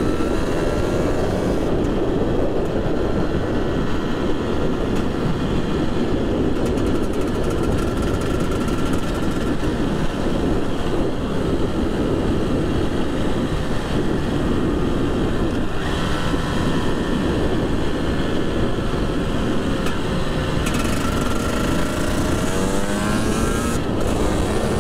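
Husqvarna two-stroke motorcycle engine under way, its pitch rising and falling as the throttle is opened and closed, over a steady rush of noise. It is running on a newly switched engine map.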